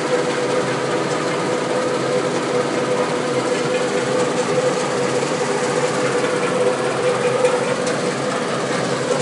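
Cattle feed pellet production line machinery running steadily: a continuous mechanical hum carrying one steady mid-pitched tone, with faint scattered clicks.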